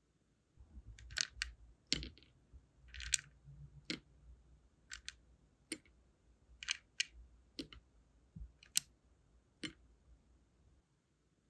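Sealing wax beads clicking as they are picked out of a plastic box and dropped into a metal wax melting spoon: about a dozen light, irregular clicks.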